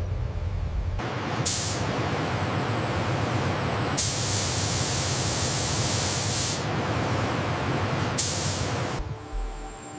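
A steady hiss, like spraying air, begins about a second in over a low hum, swells into a much louder, sharper hiss for a couple of seconds around the middle, with short louder spurts just after it begins and near the end, and cuts off about a second before the end.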